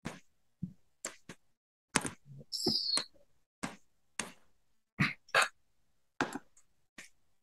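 Computer keyboard being typed on: a dozen or so separate key clicks at an uneven pace, with a short hiss about two and a half seconds in.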